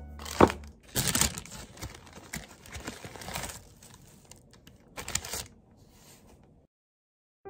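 Baking paper rustling and crinkling in several bursts as a braided dough is lifted and shifted on it, fading out near the end.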